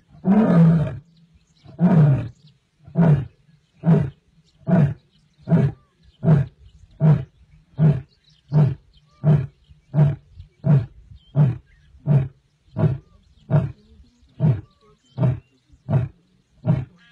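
Asiatic lion roaring: two long full roars, then a run of about twenty shorter roars, evenly spaced a little under a second apart.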